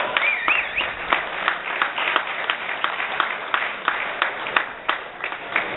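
Applause from the audience and competitors, with separate hand claps standing out about three to four times a second.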